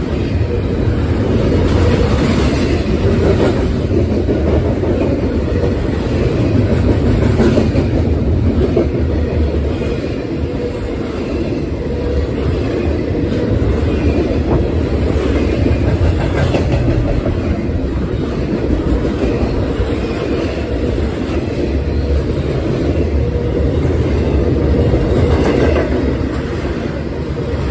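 Double-stack intermodal freight cars passing close at speed: a loud, continuous rumble of steel wheels on the rails, with the clickety-clack of wheelsets crossing rail joints.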